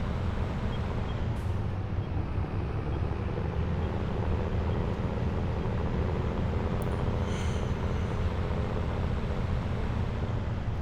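Tractor engine running steadily under way while towing a grain cart, a steady low engine note.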